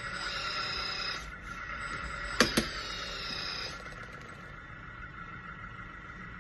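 Hydraulic pump of a LESU RC scale backhoe running with a steady whine, a higher whine rising and falling as the arms are worked in the first few seconds, and two sharp knocks about two and a half seconds in.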